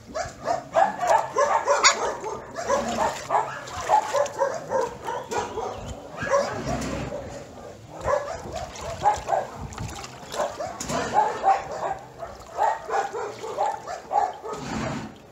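Many dogs barking at once, the barks overlapping in a steady chorus with a brief lull about halfway through.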